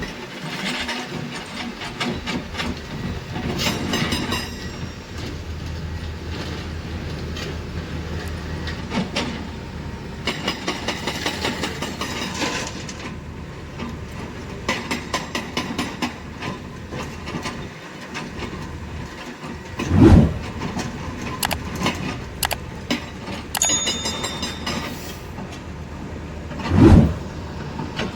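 Excavator-mounted hydraulic rock breaker hammering rock in runs of rapid blows, over the running excavator engine, with two loud low thuds in the second half.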